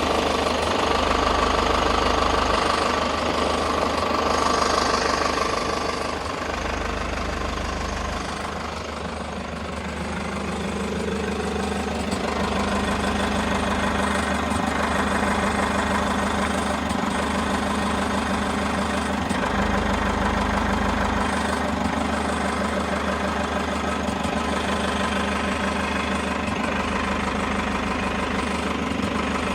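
Toyota HiAce KDH206V's 3.0-litre 1KD-FTV four-cylinder diesel idling with the usual diesel clatter, mixed with an irregular jingling rattle like a washer shaken on a bolt. The owner puts the rattle down to the idle hunting, with intake air and fuel quantity surging back and forth, and suspects sludge in the EGR valve, intake manifold or throttle valve.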